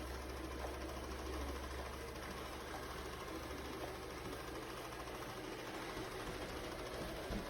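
Shark PowerDetect robot vacuum running with a steady motor whir.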